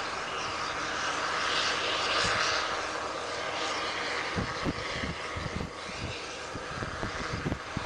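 John Deere combine harvester and the tractor beside it running under load while harvesting and unloading on the go, a steady, dense machine drone. Irregular low thumps come in over the second half.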